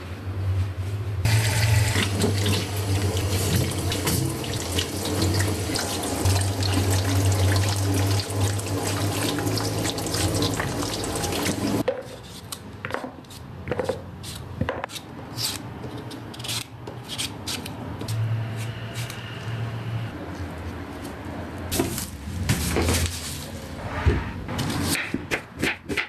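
Tap water running steadily into a bowl as fresh green beans are washed, cutting off abruptly about halfway. After that come irregular sharp clicks and snaps as the beans are trimmed with a kitchen knife over a bowl of water.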